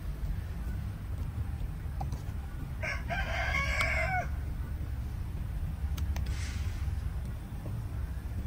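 A rooster crowing once, about three seconds in, for about a second and a half, over a steady low rumble.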